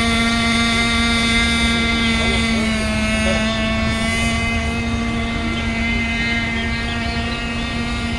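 Small two-stroke engine of an FSR radio-controlled racing boat running at full throttle, a steady high-pitched whine. The pitch dips slightly about two and a half seconds in, and the sound fades a little as the boat runs away.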